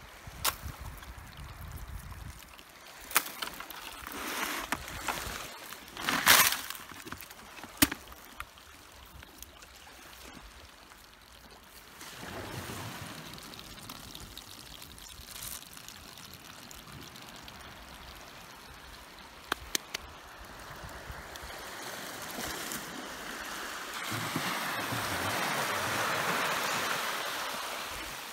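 Blue crabs being picked out of a landing net and tossed into a plastic crate: sharp clicks and knocks of shells and claws during the first several seconds. Small waves wash on the shore throughout and swell louder near the end.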